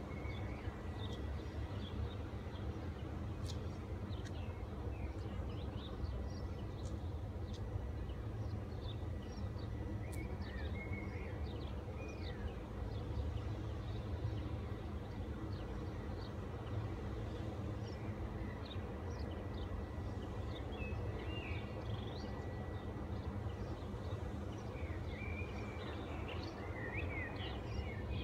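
Small birds chirping on and off over a steady low rumble, with a faint thin high whine running through most of it.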